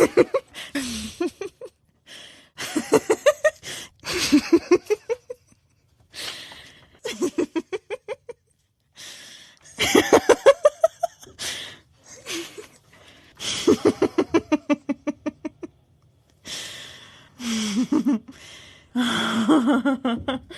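A series of separate human laughs, one after another: bursts of rapid 'ha-ha' pulses, some with breathy, wheezing intakes, with short pauses between them.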